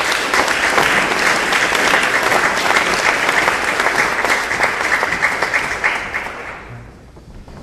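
Audience applauding, a dense patter of many hands clapping that fades out about seven seconds in.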